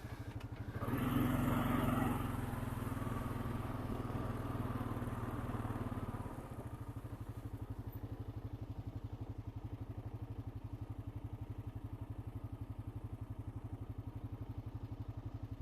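Honda Rancher 420 ATV's single-cylinder engine running while riding, with a brief rise in engine noise about a second in, then settling about six seconds in to a quieter, even chugging.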